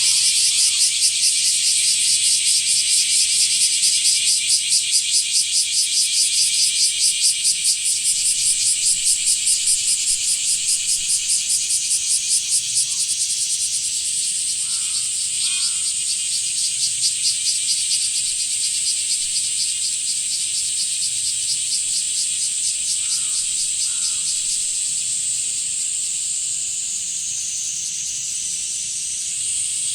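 Blackish cicadas (kumazemi) singing loudly, a high buzzing song that pulses rapidly at first and settles into a steadier buzz about halfway through, dipping in pitch near the end.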